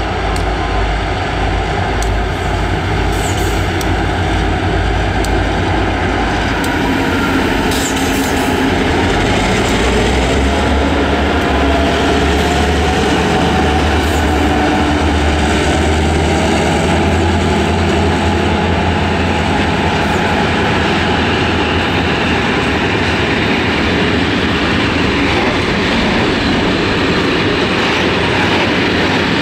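Two Roots-blown two-stroke EMD diesel locomotives (HŽ series 2062, G26CW) working hard as they pull a freight train away, running loud with a deep rumble. Then the loaded hopper wagons roll past with wheel-on-rail noise and faint squeal.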